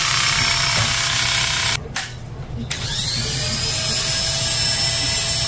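Oster Classic 76 hair clipper running with a detachable blade, the blade the speaker calls clicking before it is adjusted. The clipper cuts out about two seconds in, then is switched on again and its motor spins up to full speed with a rising whine.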